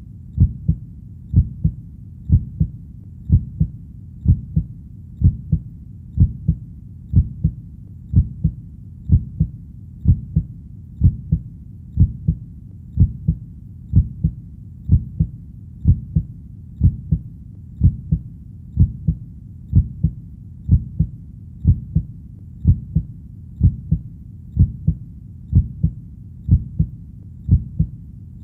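Heartbeat: a steady double thump (lub-dub), about one beat a second, repeating evenly over a faint steady background.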